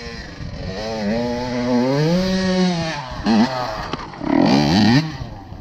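Honda CR85 two-stroke dirt bike engine revving hard as it climbs a steep dirt slope and comes closer, its pitch rising and falling, then two sharp bursts of revs near the end as the front wheel lifts.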